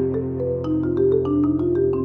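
Marimba played with four mallets in quick notes, about six a second, over a held low chord from a recorded electric guitar track.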